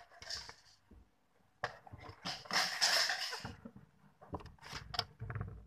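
Plastic bag of large foam beads for slime being handled: crinkling and rustling in bursts, loudest in the middle, with a few short clicks near the end.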